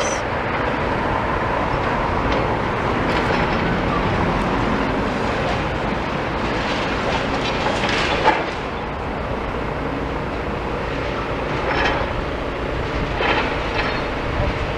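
Heavy demolition machinery working: a diesel engine running steadily under a continuous rumble and clatter, with a few sharp knocks of rubble and metal.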